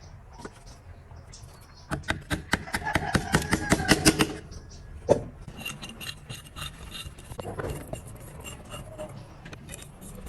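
Hand tool working metal parts of an electric wire-rope hoist: a quick run of short scraping strokes, several a second, lasting about two seconds, then a single sharp knock about five seconds in, followed by lighter clicks.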